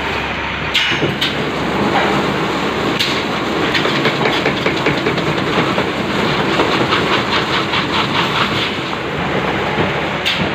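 Hydraulic log peeling machine running, a loud steady mechanical noise with a fast, even clatter for several seconds in the middle. A few sharp clacks come about a second in and again near the end.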